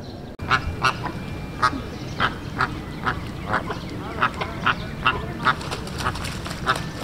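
A flock of American flamingos honking: many short calls, two or three a second, overlapping from several birds.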